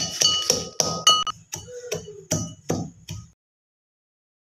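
Steel pestle pounding almonds in a stainless steel mortar: rapid, ringing metal strikes, roughly three a second, that stop abruptly about three seconds in.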